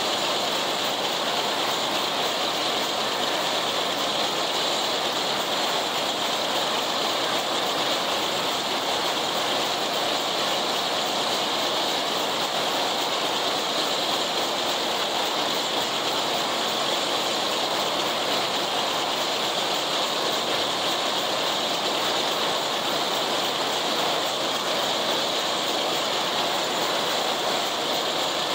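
John Deere 70 tractor pulling an International 990 haybine while it cuts standing hay: a steady, unbroken mechanical clatter and rush of the mower-conditioner working, with the tractor running under it.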